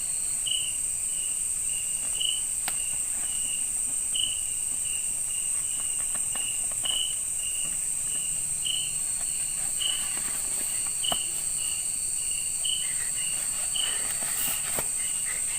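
Night forest insects: a steady high-pitched drone with a repeated chirp about twice a second, typical of crickets. A few faint clicks and rustles, mostly near the end.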